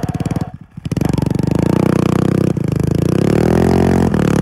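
Snowmobile engine revving hard with its track spinning in deep snow while the stuck sled is rocked and lifted free. The revs dip about half a second in, then climb and hold high with a rising note, and ease off just before the end.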